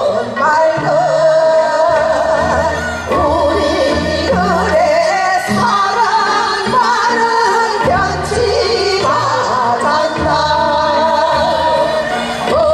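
A group of women singing a Korean folk song together through microphones, with wavering, ornamented vocal lines over an amplified backing track with a steady bass.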